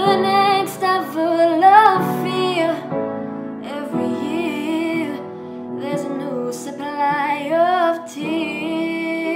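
A female vocalist singing long notes that bend in pitch, accompanied by an upright piano.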